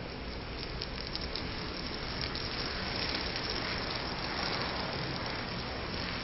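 A large heap of burning matchsticks blazing: a steady rush of flame with dense small crackles and pops as more match heads catch.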